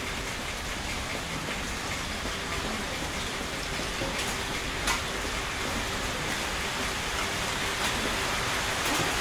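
Steady hiss with a faint hum underneath and a single sharp click about five seconds in.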